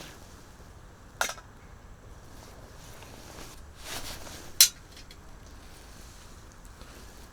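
Two sharp clinks of camp cookware or utensils being handled, about three and a half seconds apart; the second is louder and comes just after a brief rustle.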